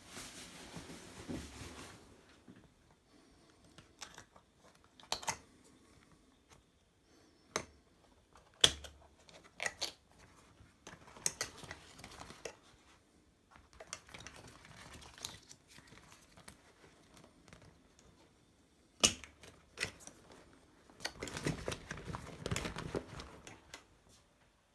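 Heavy thick rubber suit being handled: the rubber rubbing and rustling in short bouts, with scattered sharp clicks and knocks, the loudest about nine seconds in and again about nineteen seconds in, and a longer stretch of rustling near the end.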